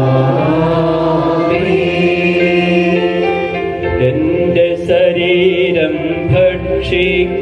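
A church hymn sung in Malayalam, with voices holding long drawn-out notes.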